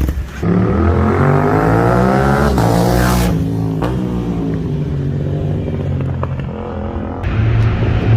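Aprilia 660 parallel-twin motorcycle with an aftermarket or stock exhaust accelerating hard. The engine note rises, breaks at a shift about two and a half seconds in, climbs again, then falls away. Near the end it switches abruptly to the engine running at a steadier pitch.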